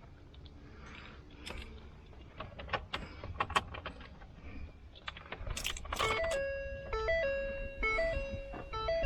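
Keys jangling and clicking in a pickup truck's cab. About six seconds in, a repeating electronic chime starts, stepping between a few tones: the 2018 Ford F-150's dash warning or start-up chime as the truck is powered back on.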